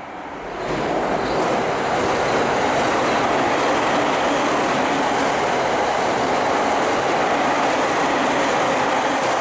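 A train passing close by at speed: the steady, loud rumble of wheels on rail, swelling up over the first second, then holding.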